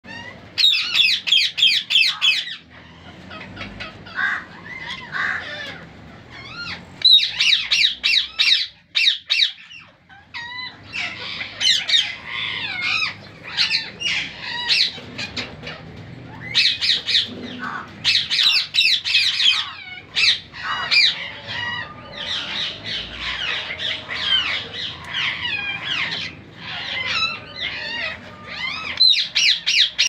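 Several parrots chirping and squawking: fast, high, wavering chirps in bursts of a second or two, with short lulls between.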